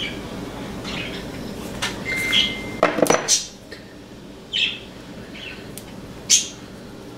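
Metal clinks and a short squeak from a wrench turning a screw eye into a solid brass bullet. The squeak comes about two seconds in, a cluster of clinks follows around three seconds, and single clinks come near the middle and near the end. A low steady noise underneath stops about three and a half seconds in.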